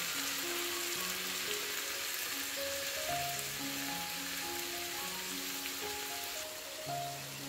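Sliced mushrooms sizzling as they fry in oil in a pan, a steady hiss that eases near the end, under background music of slow held notes.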